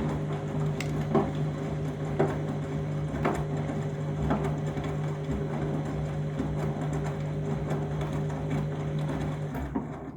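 Candy front-loading washing machine turning its drum in a deep-water rinse: a steady motor hum with a soft knock about once a second as the drum rotates. The motor stops shortly before the end.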